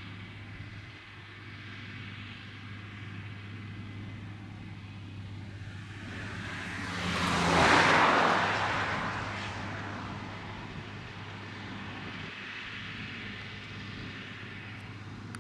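Farm tractor engine running steadily, with the tractor passing close by: the sound swells to its loudest about eight seconds in, then fades away.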